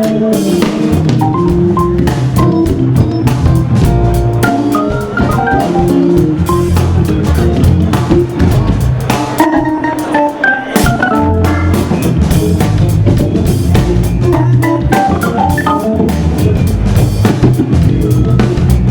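Live band music: Hammond organ playing sustained chords and melodic lines over a drum kit.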